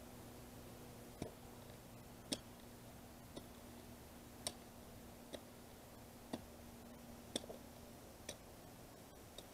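Small hand hoe chopping into sandy soil to dig a hole: faint, sharp ticks about once a second, nine strikes.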